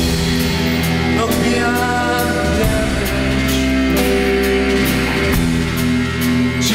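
Live rock band playing: electric guitar, bass and drum kit with steady cymbal strokes, and a man singing over held notes.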